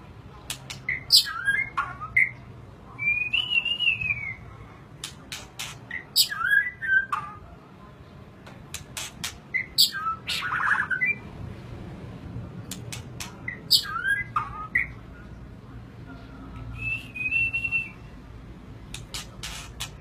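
Caged white-rumped shama (murai batu) singing: short phrases of sharp clicking notes and gliding whistles, repeated every few seconds, with an occasional longer high warbled whistle and a buzzy note near the middle.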